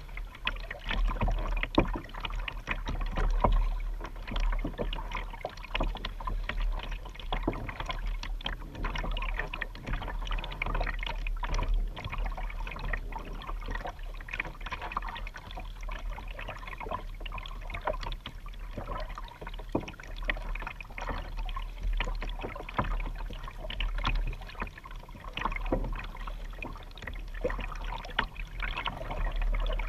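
Double-bladed paddle dipping and splashing at each stroke as a Vibe Yellowfin 100 sit-on-top kayak is paddled, with water sloshing along the plastic hull over a steady low rumble.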